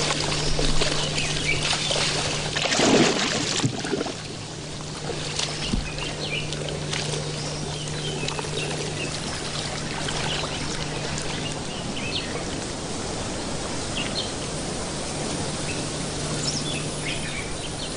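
Water sloshing and splashing for the first few seconds as mating crocodiles shift in shallow estuary water, with a peak about three seconds in. Then a steadier wash of water noise with many short bird chirps over a faint steady low hum.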